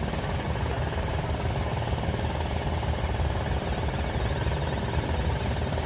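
Girder launcher machinery running with a steady low mechanical rumble.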